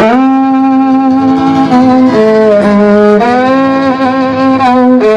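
Violin playing the slow opening of a gypsy-fusion tune in long held notes that step to a new pitch every second or so, over a lower sustained part. The music starts suddenly.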